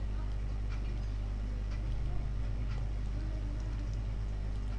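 Steady low electrical hum with hiss, with a few faint clicks scattered through.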